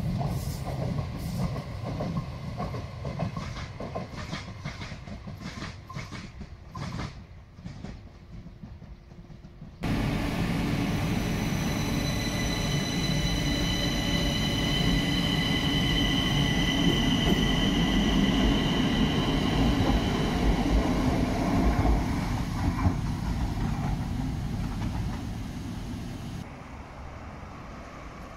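Madrid Metro 6000-series electric train (CAF, 1998) running along the track, its wheels clicking over the rail joints. It then runs at a station platform with its electric drive whining in several high steady tones over the rumble for about ten seconds.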